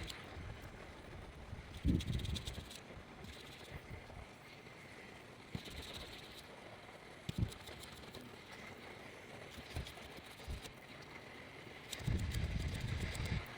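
Scattered light knocks and clicks from tools and parts being handled during chip-level board repair work, over a faint steady hiss. A low rumble starts about twelve seconds in.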